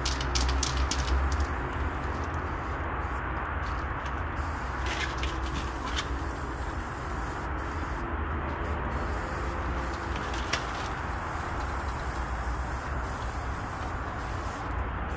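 A steady low rumble of background noise, with a few short hisses of a spray-paint can being sprayed on a wall.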